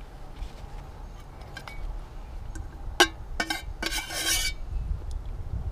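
Metal camping cutlery clinking and scraping against an aluminium camping pot: three sharp clinks about three seconds in, the first the loudest, then a short scrape.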